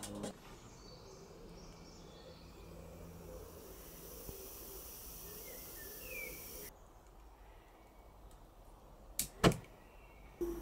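Faint background hiss, then two sharp clicks about a third of a second apart near the end.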